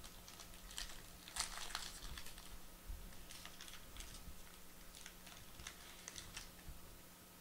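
Faint crinkling of a foil trading-card pack wrapper and light clicks of cards being handled as the pack is opened, in irregular bursts that die away near the end.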